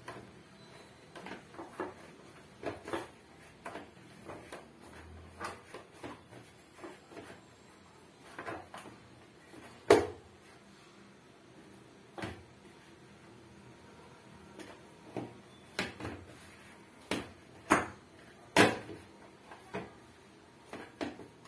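Chapathi dough being kneaded by hand in a plastic bowl: irregular soft slaps and knocks of dough and bowl, with a few louder knocks, the loudest about ten seconds in.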